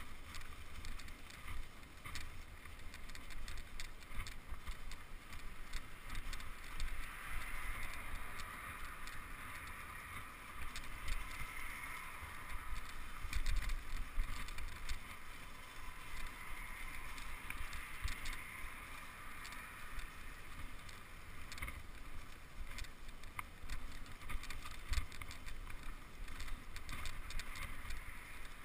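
Mountain bike rolling over a dirt forest trail: steady tyre and riding noise with many small rattles and clicks, and a low wind rumble on the microphone.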